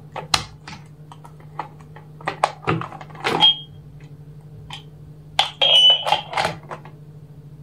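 Clicks, knocks and rustle of a plastic Commax intercom handset and its wires being handled, over a steady low electrical hum. The loudest handling comes about five and a half to six and a half seconds in, with a couple of brief high tones.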